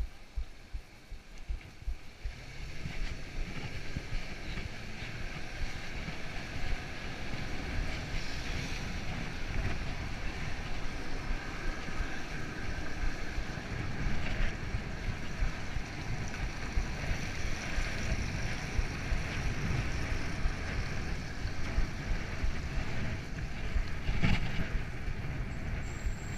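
Wind buffeting the microphone of a bicycle riding through city traffic, a steady rumbling rush with the noise of the street and passing cars behind it. It grows louder about two seconds in as the bike picks up speed.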